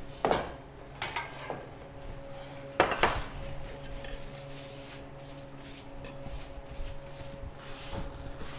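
Kitchenware knocking and clinking on a countertop as the counter is cleared and wiped with a cloth: three sharp knocks in the first three seconds, the loudest about three seconds in, then softer rubbing and light clinks.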